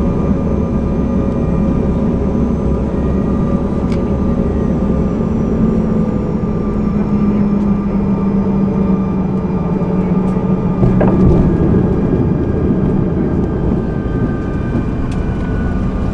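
Inside an airliner's cabin during landing: steady engine and air noise with a low hum that slowly falls in pitch. A deep rumble drops away about five seconds in.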